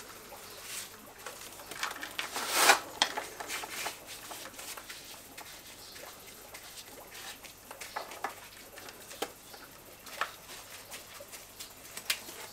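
Gloved hands pressing mortar into the joints of a stone wall and taking more from a bucket: scattered soft scrapes and small clicks, with one louder rasping scrape about two and a half seconds in.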